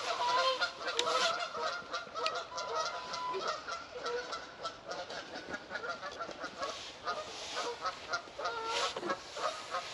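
A flock of geese honking, many calls overlapping, loudest at the start and picking up again towards the end.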